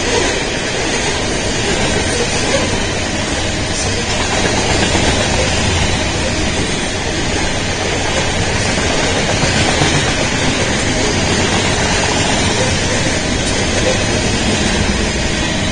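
Freight train of covered hopper cars rolling past close by: a steady, loud noise of steel wheels running on the rails.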